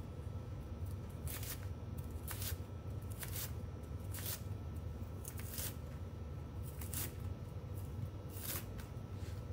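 Chef's knife slicing red cabbage thin on a cutting board: short crisp crunches, one every second or so, unevenly spaced, over a steady low hum.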